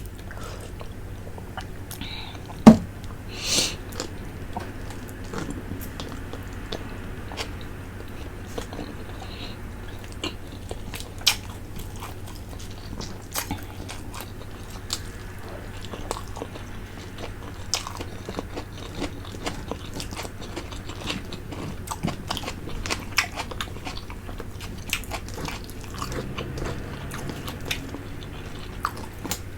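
Close-miked eating of a fish head from tinola fish soup: chewing, sucking and lip smacks, with many short sharp clicks and one loud click about three seconds in.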